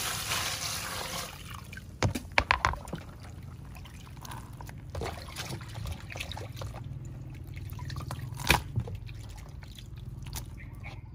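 Water poured into a plastic colander of fish for about a second, then dripping and draining from the wet colander, with a few sharp knocks and taps.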